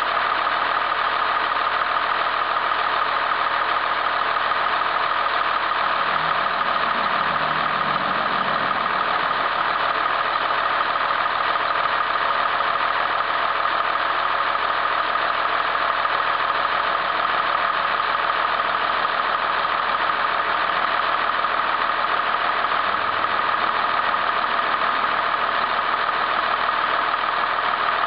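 Utility bucket truck's engine running steadily at idle, with a constant high whine over it.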